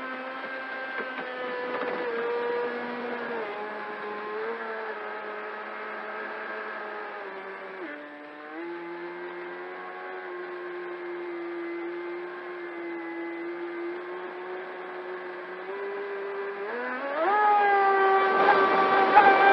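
Pro Boat Sonicwake 36" RC boat's brushless electric motor whining at part throttle, its pitch stepping down about eight seconds in as the throttle eases. Near the end the whine climbs sharply and gets louder as the throttle is opened.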